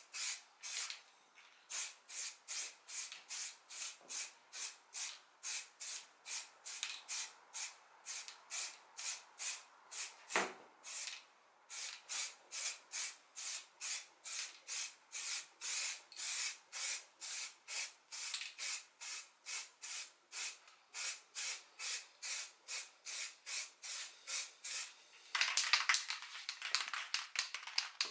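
Primer being sprayed onto a plastic car bumper in quick, even passes: short hisses about two or three a second, with one knock about ten seconds in. Near the end the spraying turns into a longer, louder, unbroken hiss.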